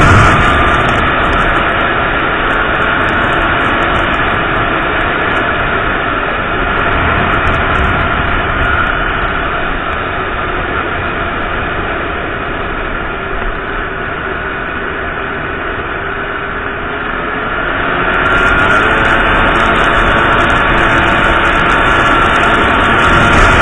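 Small motorcycle engine running under way, mixed with heavy wind noise on a helmet-mounted camera's microphone. The sound eases off through the middle and grows louder again about three quarters of the way through as the bike picks up speed.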